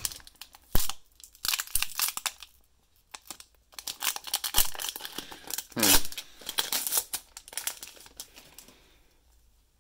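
Foil wrapper of a Pokémon card booster pack crinkling and tearing as it is opened, in two spells of crackling with a sharp snap about a second in and another about six seconds in.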